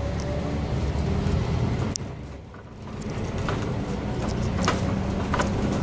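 Double-decker city bus heard from on board: its engine runs with a steady low hum, with scattered clicks and rattles. About two seconds in the noise drops away abruptly for roughly a second, then builds back up.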